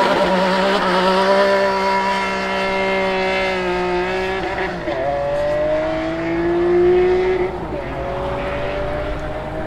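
Ferrari Enzo's V12 launching hard from a standstill with the rear tyres spinning, then accelerating away through the gears: the engine pitch climbs, drops at upshifts about four and a half and seven and a half seconds in, and climbs again each time.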